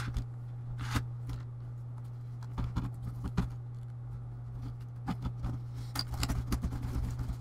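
Laptop keyboard being fitted into its plastic deck: scattered light clicks and taps as it is lowered in and then pressed down, with the clicks coming faster in the last couple of seconds. A steady low hum runs underneath.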